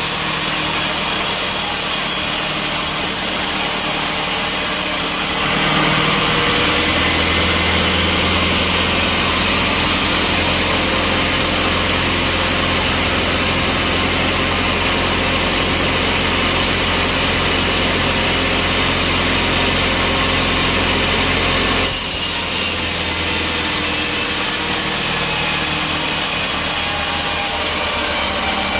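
Sawmill saw cutting through a log. The machine runs steadily throughout; the cutting starts about five seconds in, runs steadily, and ends a few seconds before the end, leaving the machine running on its own.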